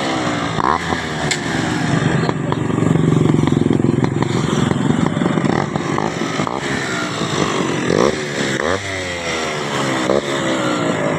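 Yamaha RX135's single-cylinder two-stroke engine running while the motorcycle is ridden. The revs rise and fall through the gears near the start and again in the last few seconds, and hold steadier in between.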